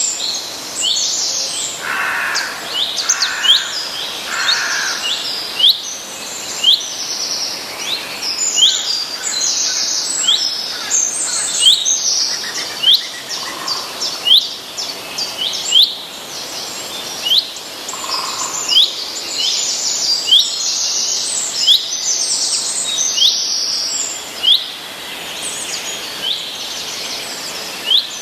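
Several songbirds singing and calling together: a short, sharp chirp repeated about once a second, mixed with bursts of high trilling song and a few lower calls.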